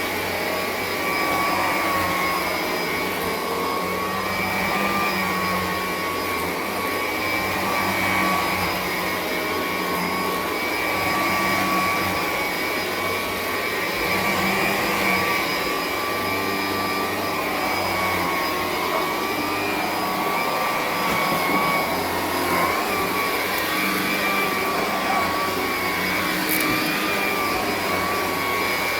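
Vintage Electrolux Discovery 3 upright vacuum cleaner (model 1572E) running steadily, a high motor whine over a low hum that swells and fades. It is in good working order: it runs pretty good.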